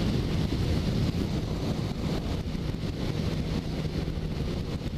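Suzuki Bandit 650S motorcycle cruising at steady highway speed, heard from its on-board camera: heavy wind noise on the microphone over a steady engine hum.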